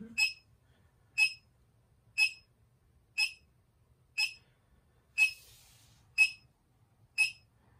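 Short, high electronic beeps from a handheld measuring meter, repeating evenly about once a second, with a brief soft hiss about five seconds in.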